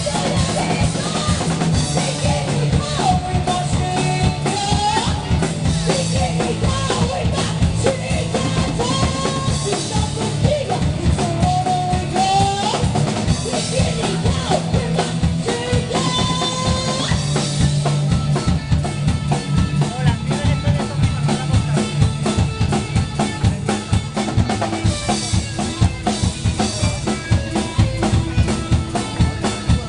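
Live rock band playing an instrumental passage: a drum kit keeps a fast, busy beat under a steady bass line and a lead melody that bends and slides in pitch.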